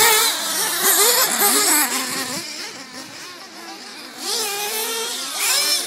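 Several small gas- and nitro-powered remote-control race car engines whining as they rev up and down. The sound fades somewhat in the middle and grows again, with one car sweeping up in pitch as it passes close near the end.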